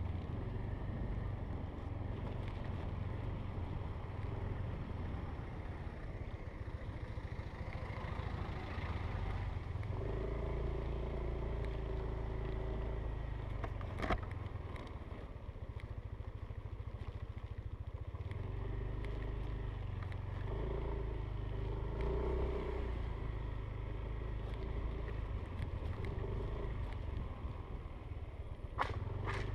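Yamaha Aerox scooter engine running steadily while being ridden, a continuous low rumble. Two sharp clicks come through, one about halfway and one near the end.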